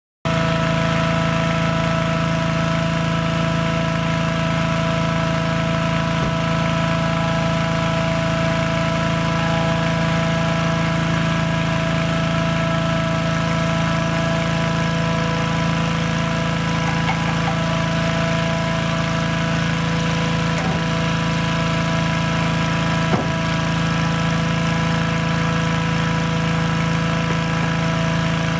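Engine-driven inflator fan running steadily, blowing cold air into a hot-air balloon envelope lying on the ground: the cold-inflation stage before the burner is lit.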